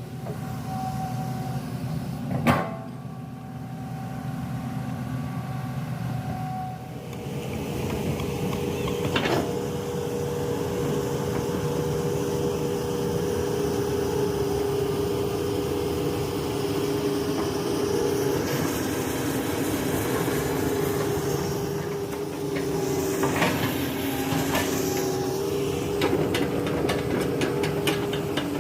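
Komatsu PC200-8 excavator's six-cylinder diesel engine running, rising in level about seven seconds in with a steady hydraulic whine as the machine works. A few sharp knocks are heard, and a quick run of metallic clinks comes near the end.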